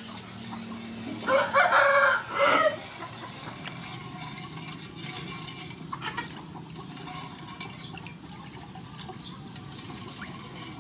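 A rooster crows once, loud, about a second in, the call lasting about a second and a half. Around it, faint scrapes and taps of a wooden spoon stirring in a metal pot.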